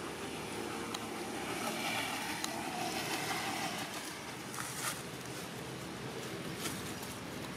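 Steady outdoor background noise like wind or a distant engine, with a few light clicks and crackles.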